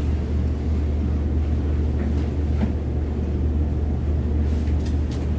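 A steady low rumbling drone with a few faint clicks over it.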